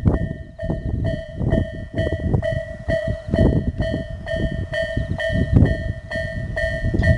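Japanese level-crossing electronic warning bell (Tobu 'sound A') ringing from both sides at about two strikes a second, over a heavy low rumble.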